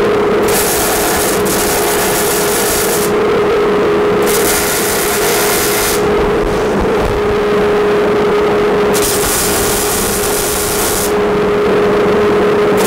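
Millermatic 211 MIG welder in gas-shielded mode welding a steel square-tube frame: the arc hisses in three runs of about two seconds each, with short pauses between them, over a steady motor hum.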